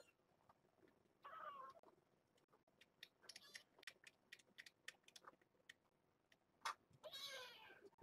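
Faint mews from young kittens: a short one about a second in and a longer, higher one near the end, with scattered soft clicks in between.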